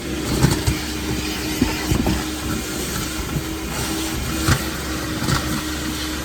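Vacuum cleaner running steadily, its motor hum and a steady tone under a rush of air, with a few short knocks scattered through.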